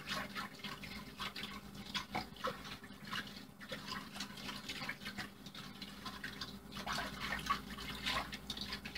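A whisk stirring a thin sauce in a slow cooker crock: quick, irregular sloshing with light clicks and taps of the whisk against the pot.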